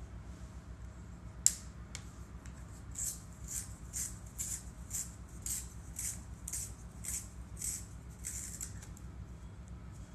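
Colored pencil being turned in a small handheld plastic sharpener, the blade shaving the wood in short rasping strokes about twice a second for several seconds. A single sharp click about a second and a half in, over a low steady hum.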